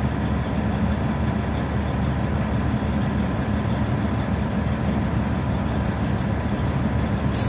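Semi truck's diesel engine idling steadily, heard from inside the cab as a constant low rumble.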